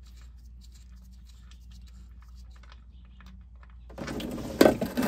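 Faint light ticks of the transmission fill plug being worked loose. About four seconds in, a sudden loud rush with a sharp knock in it as transmission fluid gushes out of the opened fill hole into the drain pan.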